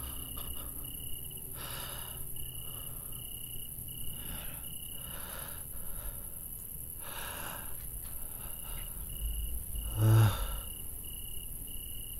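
A hurt man breathing heavily in ragged breaths, with a short groan about ten seconds in, over a cricket chirping in an even pulse.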